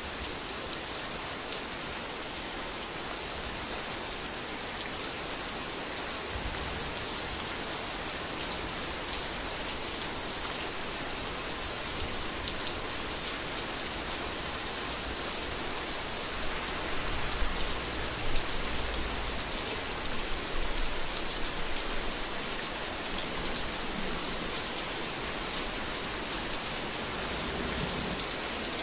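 Heavy rain falling steadily, a dense even hiss of countless drops. About two-thirds of the way in, a low rumble swells beneath it, with a couple of louder hits.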